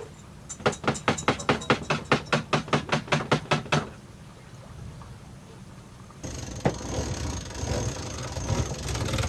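Shaker (jiggle) siphon being jerked up and down in a diesel jerry can to start the flow: its valve clacks rapidly, about five or six times a second, for about three seconds. About six seconds in, a steady low rumble suddenly takes over.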